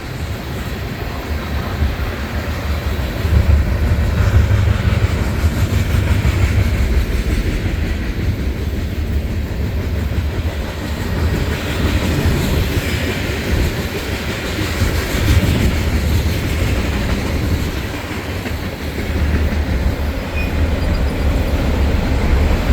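BNSF manifest freight train rolling past: a continuous low rumble with rail noise, swelling about three seconds in, easing a little later on and rising again near the end.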